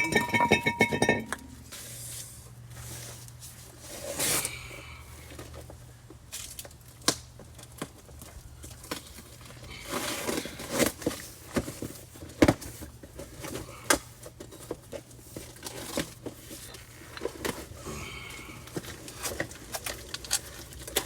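Metal brake parts and hand tools clinking and knocking during front brake rotor work, with scattered sharp knocks. A short metallic ring comes at the start, and the loudest knock comes about halfway through.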